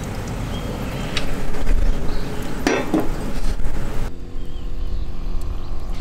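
Wind rumbling on the microphone, with a light clink about a second in and a louder clink of metal camp gear, briefly ringing, near the middle.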